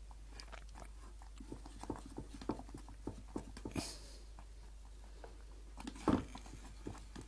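Spoon stirring thick, boiling soup in a saucepan: irregular soft wet plops and clicks of the spoon against the pan, with a louder knock near the end.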